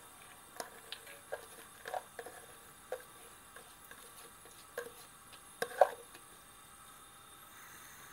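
Soaked chana dal (split chickpeas) tipped from a bowl into a saucepan of water, the last grains dropping in a few at a time: scattered soft taps and plops, the loudest a little before six seconds in.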